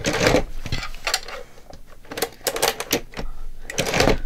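A We R Memory Keepers Cinch wire binding machine being worked to close the metal binding wire on a journal: plastic-and-metal clacks about once a second, four in all, as the handle is pressed and the wire is crimped.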